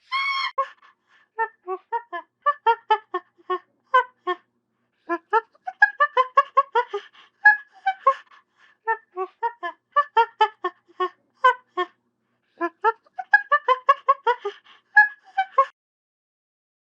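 Monkey chattering sound effect: a long run of rapid, short, pitched hoots, several a second, in bursts with brief pauses, ending about a second before the close.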